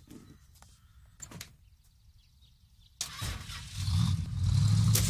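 Faint low hum with a couple of light clicks. About three seconds in, a sudden loud, steady rumble with a strong low hum sets in.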